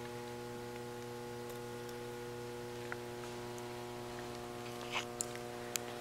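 Steady electrical hum made of several steady tones, with a few faint clicks about three seconds in and again near the end.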